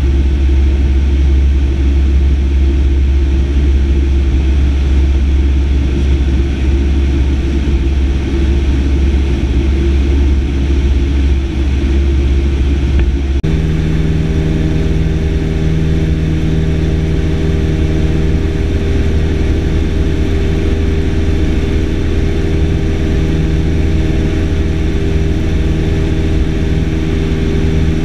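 Single-engine light aircraft's piston engine and propeller droning steadily, heard inside the cockpit in flight. About halfway through the drone changes abruptly to a different steady pitch with a clearer hum.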